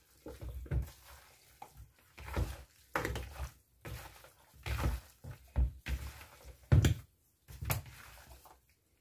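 A gloved hand mixing chicken pieces and vegetables with seasoning in a bowl. It makes irregular wet squelches and rustles, with short knocks against the bowl, several of them sharper in the second half.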